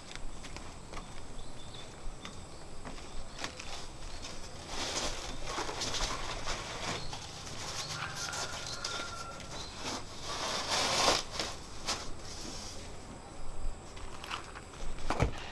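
Irregular rustling of a woven plastic sack being carried and handled, with scattered footsteps, coming in uneven bursts.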